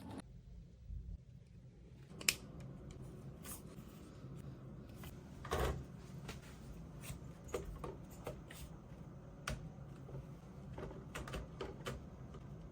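Scattered clicks, taps and knocks of small hard objects being handled, over a steady low hum; the sharpest knocks come about two seconds in and near six seconds.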